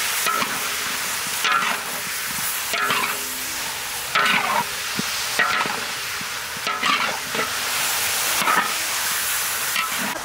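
Fish pieces stir-frying in a large iron wok with a steady sizzle, while a metal spatula scrapes and turns them in repeated strokes about every second or so, each with a brief metallic ring.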